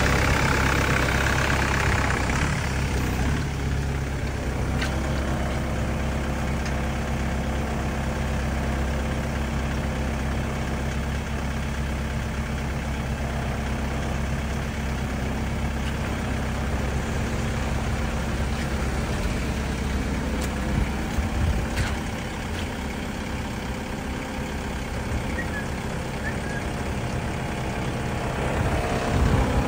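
Mercedes Sprinter 413's diesel engine idling steadily, dipping slightly in level about two-thirds of the way through.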